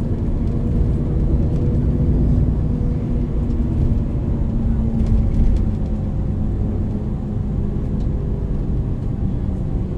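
MAN NL 323 city bus's diesel engine and ZF EcoLife automatic drivetrain running under way, a steady drone whose pitch sags slightly about halfway through.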